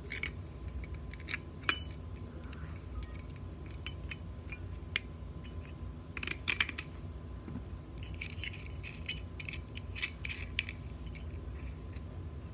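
Pliers clicking and scraping on the metal lug nut of a ceiling fan light kit as it is worked loose, with small metallic clinks; the clicks come in a cluster about six seconds in and again from about eight to eleven seconds.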